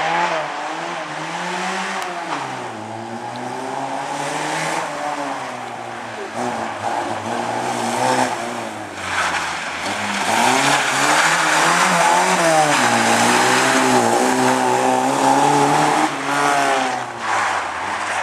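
A Lada saloon's four-cylinder engine being driven hard, its revs repeatedly climbing and dropping, with tyres squealing as it slides through the turns. The engine and tyre squeal are loudest between about ten and sixteen seconds in.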